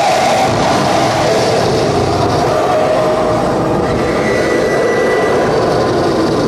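Live electronic noise music: a loud, steady wall of dense noise, with a few faint held tones coming and going inside it.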